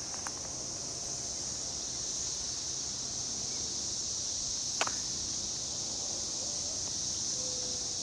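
Chorus of Brood XIX periodical cicadas: a steady, continuous high-pitched buzzing drone. A single sharp click sounds about five seconds in.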